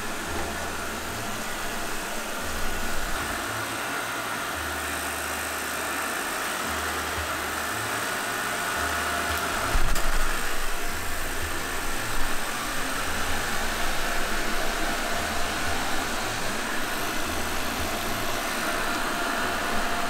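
Robot vacuum cleaner running: a steady whir of its suction motor and brushes, with a faint higher whine. A low bump comes about halfway through.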